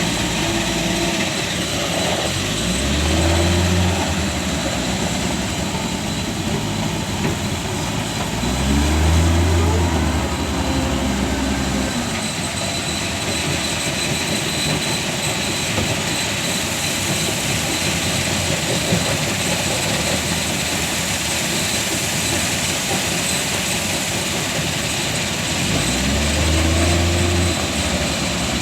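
Truck engine running under way with steady road and drivetrain noise; three times the engine note swells and climbs in pitch, about two, eight and twenty-six seconds in.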